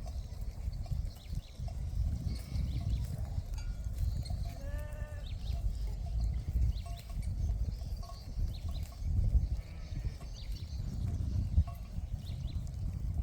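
A sheep bleats once with a wavering call about five seconds in, and faintly again near ten seconds, over a steady low rumble.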